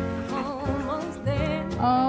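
Background music with a steady bass line and a singing voice with vibrato.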